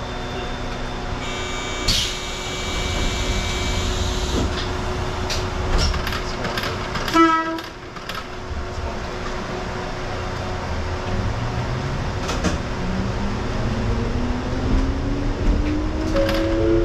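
Konan Railway electric train leaving a station. A steady electronic tone sounds for a few seconds as the doors close, a short loud burst comes about seven seconds in, and then the traction motors whine, rising steadily in pitch as the train gathers speed.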